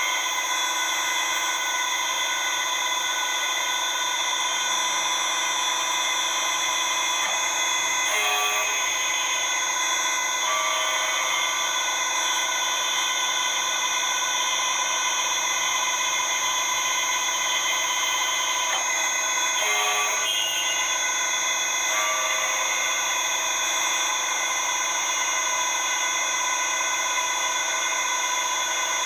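CK28 slant-bed CNC lathe running, a steady machine whine made of many high tones, with brief changes in the tone about eight and twenty seconds in.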